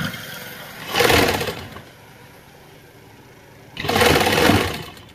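Sewing machine stitching through cloth in two short runs, one about a second in lasting about half a second, and a longer one of about a second near the end.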